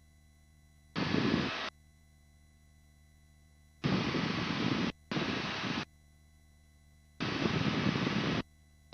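Helicopter cabin noise from the engine and rotor, heard through the headset intercom microphone. It cuts in and out abruptly four times as the voice-activated mic opens and closes, with near silence in between.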